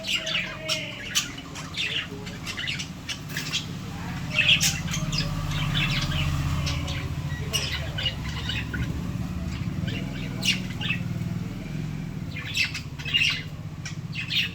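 Several lovebirds squawking and chirping in short, sharp calls, on and off throughout. A steady low rumble builds up in the middle and fades out again.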